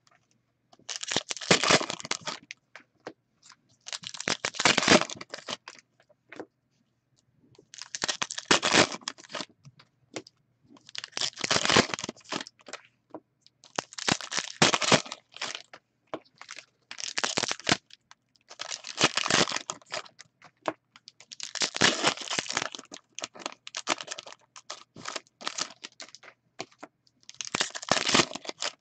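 Foil trading-card pack wrappers being torn open and crinkled by hand, in about ten separate bursts of a second or two with short quiet gaps between them.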